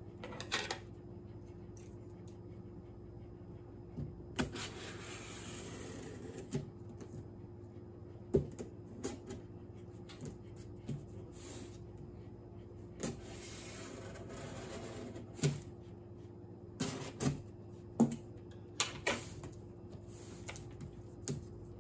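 Scissors slitting the packing tape on a cardboard shipping box, two longer scraping stretches of a couple of seconds each, with scattered sharp knocks and taps as the box and scissors are handled on a table. A faint steady hum runs underneath.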